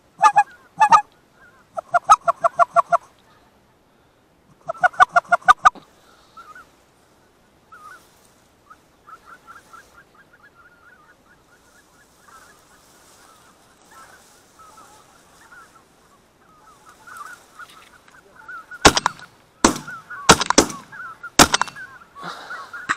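Geese honking in quick, even runs of calls, with fainter honking through the middle. Near the end comes a fast volley of about five shotgun shots at a goose flying over.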